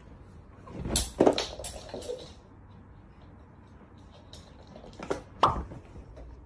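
A few short knocks and clatters in two clusters: several about a second in, and two more near the end.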